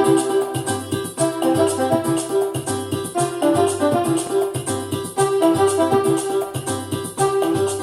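Background music: a melody of changing notes over a steady beat, with a repeating bass line and a quick ticking percussion.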